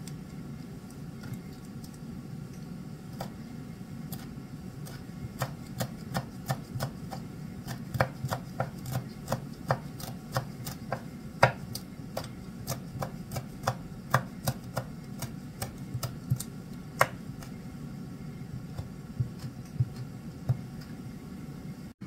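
Kitchen knife chopping fresh herbs on a wooden cutting board: irregular sharp knocks, one to three a second, that start a few seconds in and stop about three-quarters of the way through, with a few last cuts near the end. A steady low hum runs underneath.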